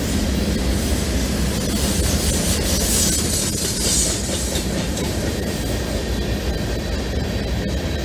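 Freight train cars rolling past with a steady rumble and wheel clatter. A high wheel squeal swells from about two and a half to four and a half seconds in, from the wheels on the curve.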